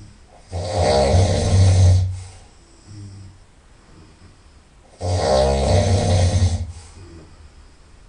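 A person snoring loudly through the nose: two long snores, each about a second and a half, roughly four and a half seconds apart.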